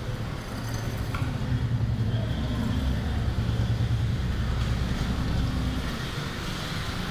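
Rainy-evening outdoor ambience dominated by a low, steady rumble of a passing vehicle or train. The rumble swells through the middle and eases near the end.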